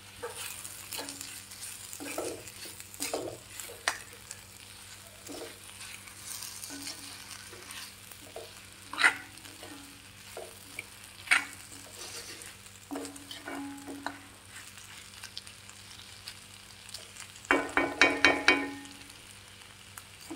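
A spatula stirring a drumstick and tomato stir-fry in a sizzling kadai, with scattered scrapes and knocks against the pan. A quick run of louder clanks comes near the end.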